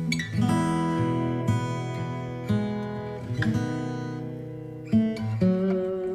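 Background music: an acoustic guitar strumming chords, with a new chord about once a second.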